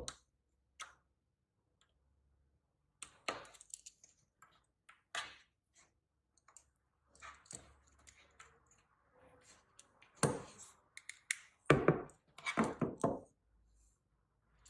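Scattered clicks, knocks and light rustling of a USB cable and its connectors being handled: one cable unplugged and a USB-C to Lightning cable plugged into a USB meter and a phone. The handling is busiest about ten seconds in and again around twelve to thirteen seconds.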